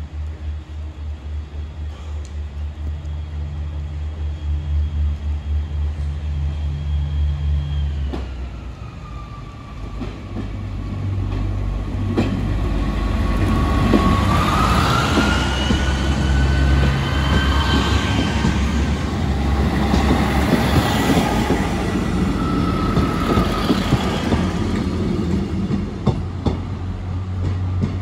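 A passenger train running through a level crossing. A low pulsing engine rumble gives way, about a third of the way in, to a louder passage in which an electric whine rises in pitch and holds. A few sharp clunks from the wheels come in between.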